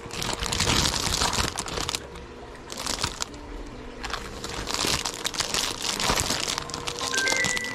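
Packaging of newly delivered minnow lures being handled, crinkling and rustling in two busy spells with a quieter stretch between. Near the end a few chime-like notes of background music come in.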